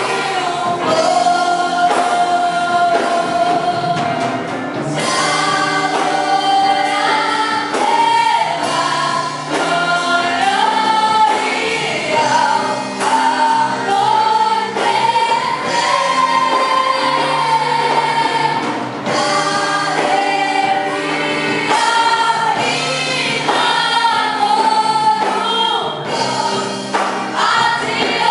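Gospel worship song with a choir of voices singing the melody over a full band with a steady beat.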